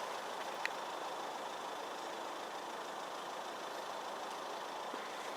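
Steady, even background noise with no distinct source, and a single faint click about two-thirds of a second in.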